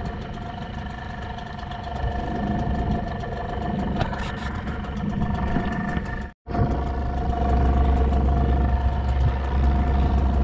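Small boat's engine running steadily, with a brief dropout a little over six seconds in, after which its deep hum is louder.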